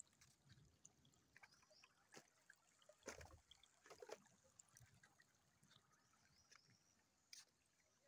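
Faint, irregular footsteps crossing a wooden plank footbridge and then through grass and leaf litter, with a few louder knocks around three and four seconds in.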